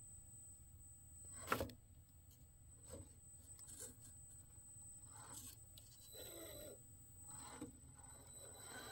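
An electric RC rock crawler on a Redcat Wendigo chassis, its tyres and chassis giving a few soft knocks and scrapes on rock as it climbs a stone step, the loudest about a second and a half in. Otherwise near silence.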